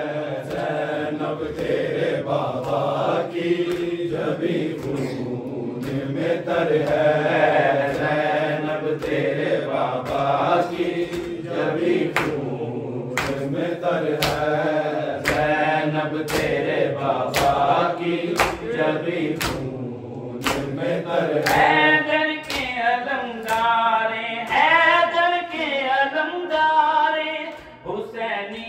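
Group of men chanting a Punjabi noha in unison, with a steady beat of open-hand chest-beating (matam) at about three strikes every two seconds through the middle. Near the end one voice stands out above the group.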